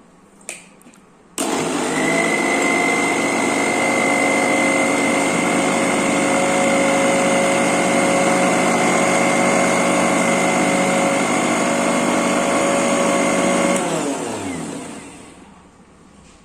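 Preethi Zodiac mixer grinder motor switched on with the juicer jar full of pomegranate seeds, milk and sugar: it starts after a couple of clicks, runs steadily with a high whine for about twelve seconds, then is switched off and winds down with falling pitch.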